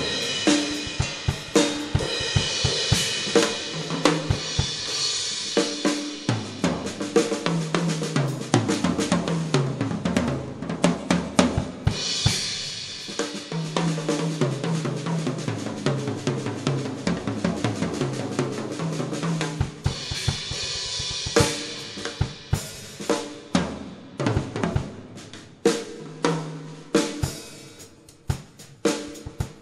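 Drum kit playing a groove of snare, bass drum and cymbals over a stepping bass line. From about two-thirds of the way in, the playing thins out into separate, spaced hits.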